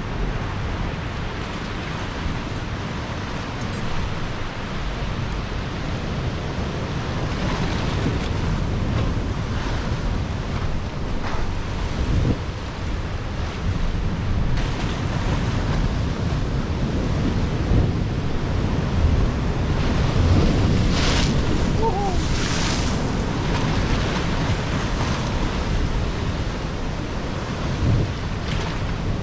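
Sea surf washing and splashing against rocks in a narrow inlet, with wind buffeting the microphone. The wash is steady, with a couple of louder splashes about two-thirds of the way through.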